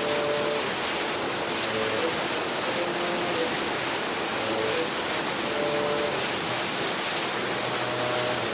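Steady rushing noise of wind and water, with a faint tune of short notes over it.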